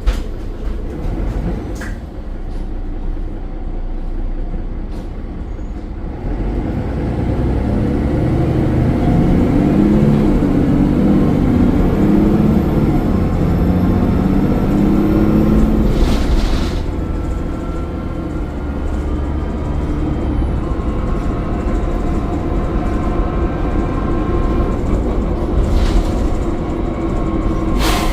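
Mercedes-Benz Citaro O530 bus's OM906 6.4 L straight-six diesel engine pulling away, getting louder about six seconds in, with a faint turbo whine rising and falling above the rumble. A short hiss comes about two-thirds of the way through and again near the end.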